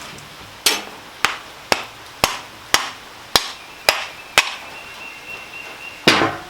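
A hammer tapping sharply on an old updraft carburetor, eight even taps about two a second, then one heavier blow near the end.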